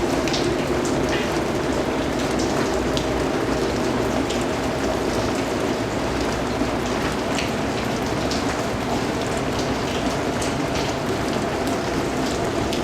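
Steady rain falling on a surface, an even hiss with scattered drip ticks.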